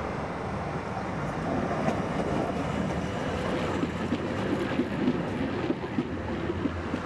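Ganz three-section articulated tram passing close by, a steady rumble of its wheels on the rails that swells as it nears. A run of sharp knocks comes as the cars go past, between about four and six seconds in.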